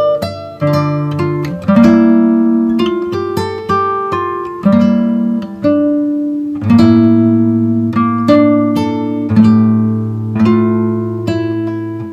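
Background music: plucked notes and chords, a new one struck about every second and each left to ring and fade.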